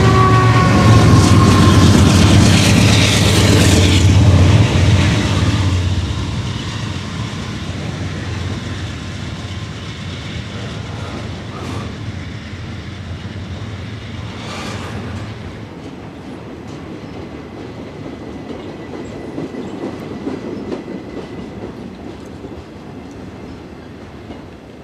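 Norfolk Southern freight train passing close below: a diesel locomotive's engine drone and a falling whine fade over the first few seconds, then intermodal container cars roll by with clickety-clack, a couple of clanks and a brief faint wheel squeal, growing quieter as the train moves away.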